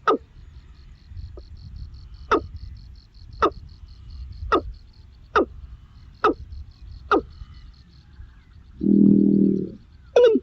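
A bird giving a series of sharp calls that sweep down in pitch, roughly one a second. A louder, buzzy, lower call comes about nine seconds in, and a faint high rapid trill runs behind.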